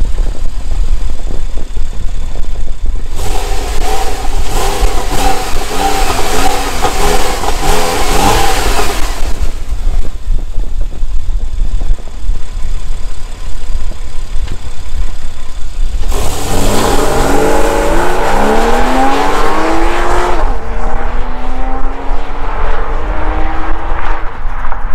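Porsche 911 Carrera (991.1) flat-six on its stock exhaust without valves: idling, then a series of stationary revs a few seconds in. About sixteen seconds in it accelerates hard away with a rising note, changes gear and pulls again, the sound fading as the car moves off.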